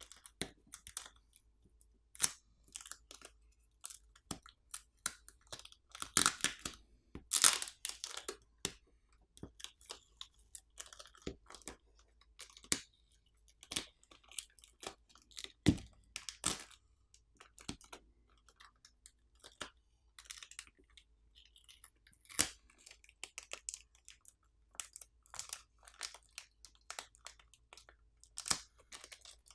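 Clear plastic film being peeled off a phone's midframe and crinkled between the fingers: irregular crackles, small clicks and taps, densest about a quarter of the way in, with one sharper knock near the middle.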